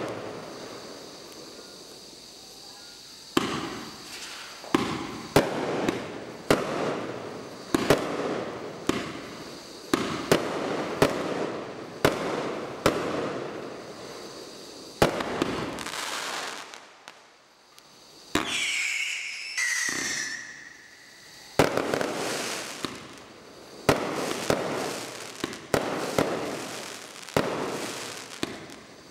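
A multi-shot firework barrage cake firing shot after shot, about one or two bangs a second, with crackling glitter between the reports. About two-thirds of the way in there is a short lull, then two brief whistling tones before the shots pick up again.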